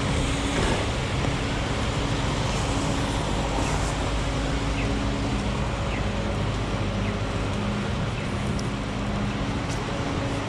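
Heavy rain falling in a city street, a steady wash of noise, with passing traffic and a vehicle engine's low hum coming and going underneath.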